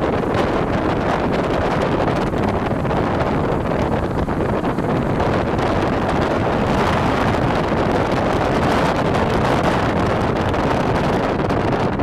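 Steady rushing noise of a moving vehicle: road and wind noise, with wind buffeting the microphone.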